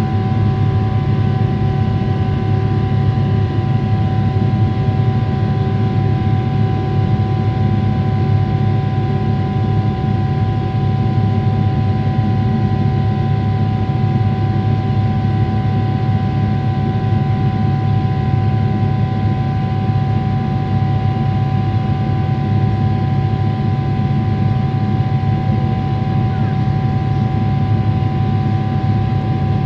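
Boeing 777-300ER with its GE90-115B engines at climb power, heard from inside the cabin: a steady, loud drone of engine and airflow noise with a few steady whining tones on top.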